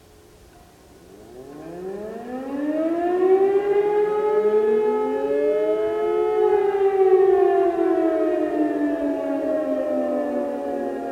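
Several electromechanical civil-defence sirens, led by a nearby E57 with a DS977 and more distant sirens, sounding the test signal "Probe". From about a second in they wind up one after another in overlapping rising wails and settle into a loud chord of steady tones. Over the last few seconds the pitches slowly sink as they begin to wind down.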